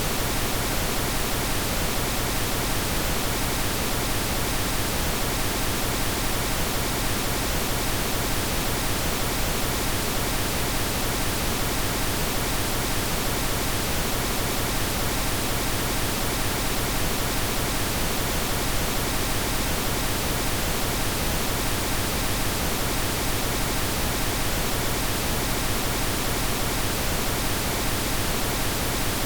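Steady synthetic pink noise: an even, unchanging hiss with no breaks or events.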